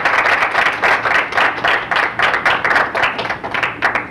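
Audience applauding, the clapping thinning into more separate claps near the end and breaking off suddenly.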